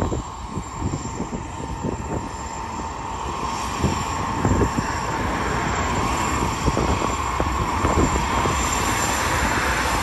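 BNSF diesel-electric freight locomotives (GE ET44C4s and a Dash 9) under power, pulling away from a stop: a deep engine rumble with a steady whine, growing steadily louder as the lead units approach and pass.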